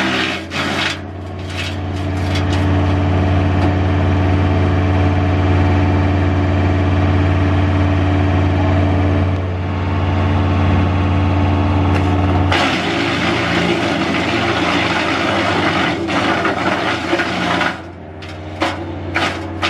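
Cat skid-steer loader's diesel engine running steadily to drive a hydraulic wood chipper attachment. About halfway through the sound turns rougher for around five seconds as a branch is fed through and chipped, with sharp wood crackles near the start and the end.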